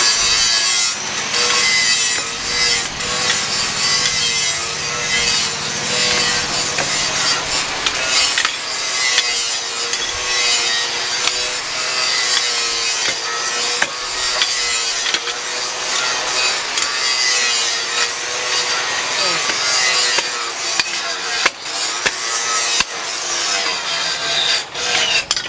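Electric power tool running under load as it cuts or grinds: a motor whine that wavers in pitch over a continuous hiss.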